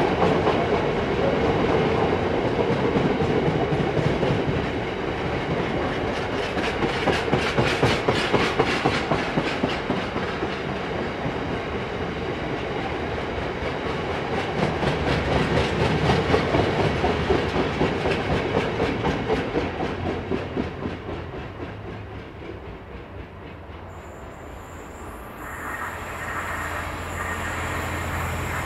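Freight train of bogie tank wagons rolling past, the wheels giving a rhythmic clickety-clack over the rail joints that swells twice and fades after about twenty seconds as the last wagon passes. Near the end a Class 66 diesel locomotive's engine drones low and steady as it approaches.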